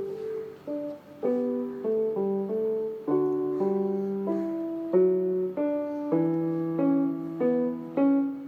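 Background piano music: a gentle tune of struck chords and notes, each fading after it is played.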